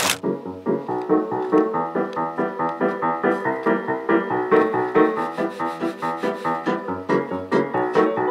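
Background music: a steady, rhythmic run of pitched keyboard-like notes.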